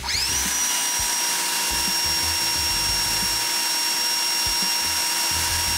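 A small electric motor, like a power tool's, whirs up to speed at the start and runs steadily with a high whine over a hiss. It begins to wind down in pitch at the very end.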